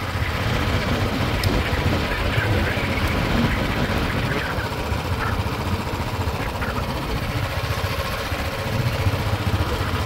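A small vehicle's engine running steadily under way, with a constant low rumble of wind on the microphone.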